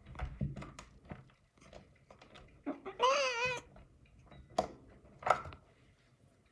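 Young black kitten meowing once, a short wavering meow about three seconds in. Soft knocks and rustling come before and after it, with two sharper knocks toward the end.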